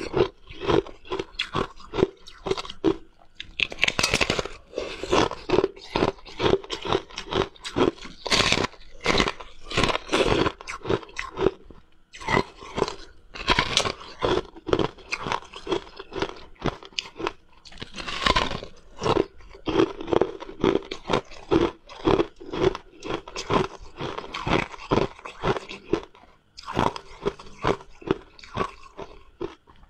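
Close-up eating sounds of biting into and chewing a slab of ice: a quick run of crisp crunches and cracks, several a second, with brief pauses between bites.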